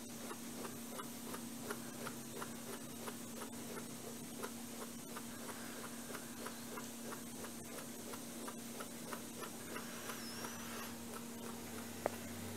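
Faint, regular ticking, about three ticks a second, over a steady low hum.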